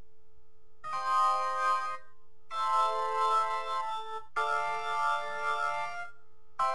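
Software Hammond organ patch in Steinberg Hypersonic 2, set with full drawbars, percussion and rotary speaker, playing four held chords of about a second and a half each with short gaps between, the first starting about a second in.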